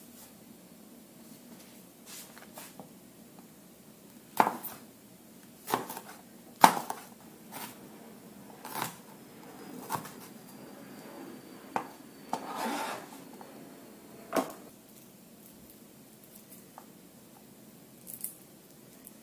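Chinese cleaver chopping on a plastic cutting board as a jalapeño pepper is cut, in scattered, uneven knocks rather than a steady rhythm, with a short scrape partway through. The chops stop about three quarters of the way in.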